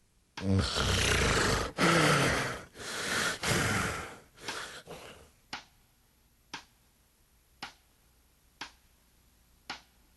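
A person snoring loudly: three long snores in the first four seconds, the first with a low flutter at its start, then two fainter ones. After that there is only a short sharp click about once a second.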